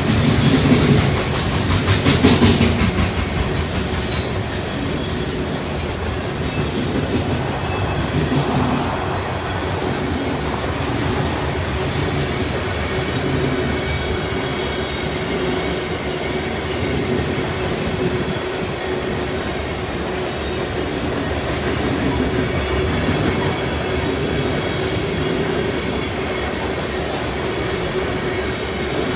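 Freight cars of a long train rolling past: centerbeam lumber flatcars, then covered hoppers. Steel wheels rumble steadily on the rails, with louder clacking in the first few seconds and a thin steady high whine through the later part.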